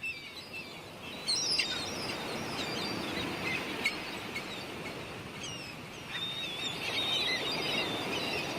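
Small birds chirping and calling, many short high chirps and quick rising and falling sweeps, over a steady outdoor hiss.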